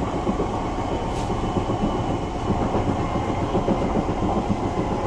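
Inside the motor car of an SMRT C651 train running at speed: the steady rumble of wheels on the rails mixed with traction-motor noise, with faint high tones held steady.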